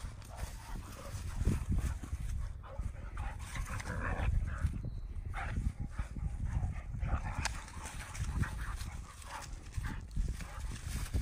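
Two dogs play-fighting, making short, irregular grunting and growling-type noises as they wrestle and mouth each other. A steady low rumble runs underneath.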